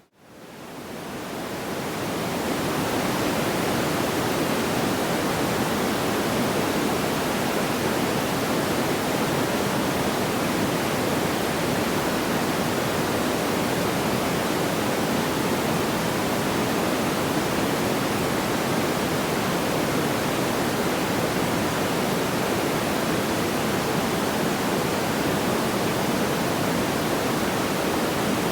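Steady, even rushing noise with no distinct crackles or pops. It swells up from near silence over the first two seconds, then holds level.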